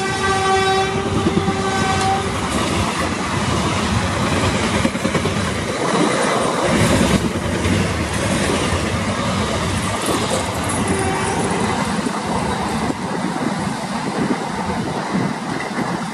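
Indian Railways passenger coaches rushing past at speed, a steady loud rolling rumble with wheels clattering over the track. The hauling WAG-7 electric locomotive's horn, one held tone, carries on for about the first two seconds and then stops.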